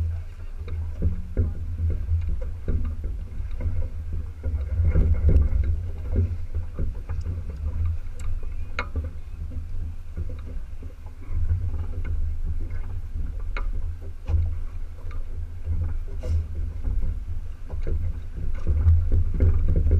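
A small sailboat under way: wind rumbling on the microphone and water splashing along the hull in choppy water, with a couple of sharp clicks.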